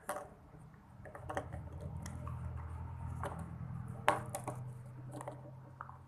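Small plastic toys and surprise-egg capsules handled and tapped on a surface: scattered light clicks and knocks, one sharper knock about four seconds in. A steady low hum sets in about a second in.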